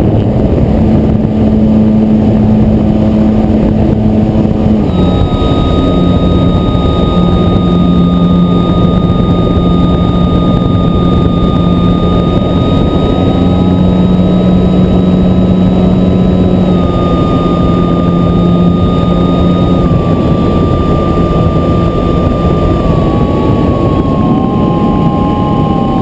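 FPV quadcopter's electric motors and propellers running in flight: a steady high whine over loud rushing noise, its pitch shifting in small steps now and then.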